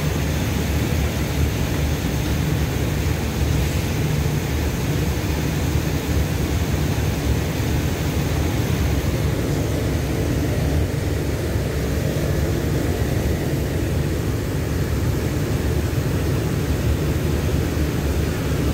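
Steady low rumble and hiss of a diesel-hauled express passenger train at the station platform, its engines running.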